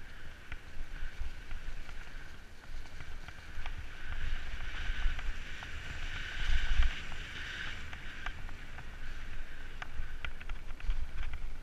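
Mountain bike riding down a leaf-covered forest singletrack: wind rumble on the bike-mounted camera's microphone, a steady higher buzz from the moving bike that grows louder in the middle, and many short rattles and clicks from the bike over the rough trail.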